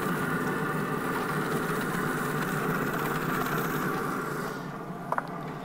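Steady hum of a running Pit Boss pellet grill, with the hiss of eggs frying in a cast iron skillet. The sound eases off about four and a half seconds in, and two light clicks follow just after.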